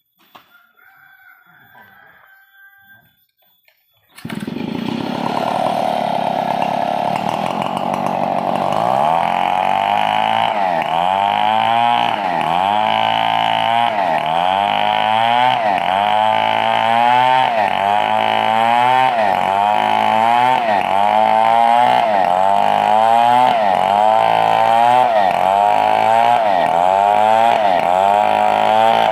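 A wood-cutting power saw starts abruptly about four seconds in and runs loud and steady. From about eight seconds its sound pulses rhythmically, about once a second, as it saws through a 4-metre coconut log.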